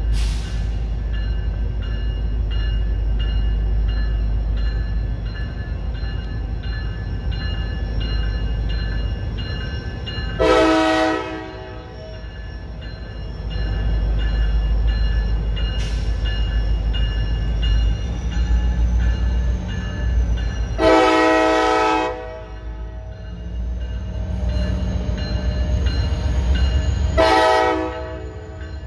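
Diesel freight locomotive's air horn sounding three separate blasts, each lasting a second or two, over the steady low rumble of the train running by.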